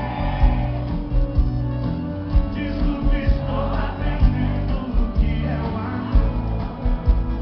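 Live sertanejo band music: singing over guitar, bass and a steady drum beat, recorded from the audience.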